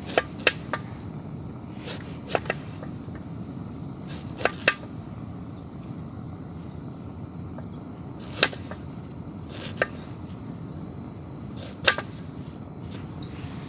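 Knife slicing a cucumber on a wooden cutting board: sharp knocks of the blade reaching the board, irregularly spaced, some in quick groups of two or three, over a steady low background noise.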